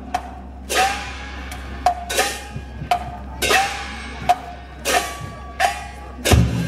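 Minshingaku (Ming-Qing music) percussion keeping a steady beat: a sharp wooden clack alternating with a ringing metal stroke, about one pair a second. A heavier, booming drum-like stroke comes near the end.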